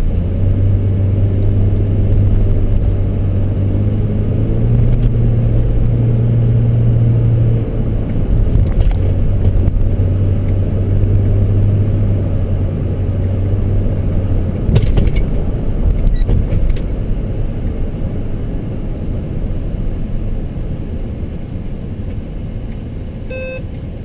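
Toyota Sienna minivan being driven, heard from inside the cabin: a steady low engine hum with road noise that steps up in pitch about four seconds in and drops back near eight seconds, then grows fainter after about fifteen seconds. A short beep sounds near the end.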